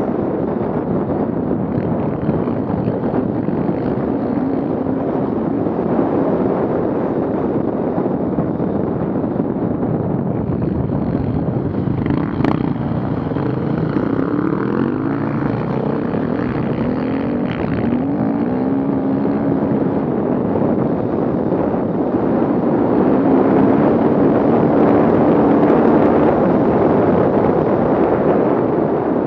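Off-road vehicle engine running and revving, its pitch climbing and dropping several times as it works, over heavy wind noise on the microphone.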